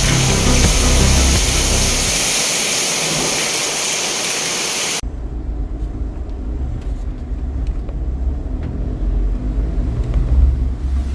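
Music with a steady hiss, cut off sharply about five seconds in. It gives way to a low vehicle rumble with a few faint clicks, typical of the Force Gurkha SUV's engine while driving.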